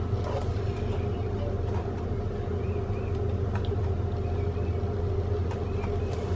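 Steady low mechanical rumble with a faint hum.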